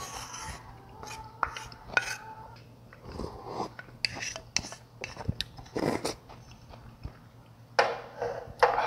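Spoon clicking against a small bowl while broth is sipped, with several short slurps, the longest near the end.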